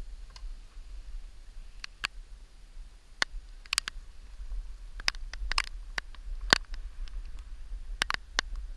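Scattered light clicks and taps of fishing tackle being handled and wheeled on a barrow, irregular and several a second at times, over a steady low rumble.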